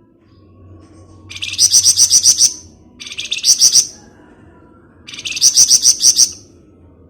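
Flamboyan songbird singing three loud bursts of rapid, evenly repeated high chattering notes, the 'ngebren' trill.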